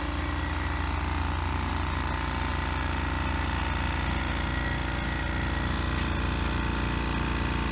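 Campbell Hausfeld 8-gallon 'Half the Noise' quiet air compressor running steadily as it fills its tank: a low, even hum, ridiculously quiet.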